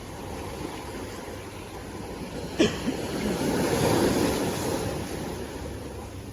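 Sea surf: a wave swells up, peaks about four seconds in and washes back out over a steady rush of water. A sharp knock sounds once, about two and a half seconds in.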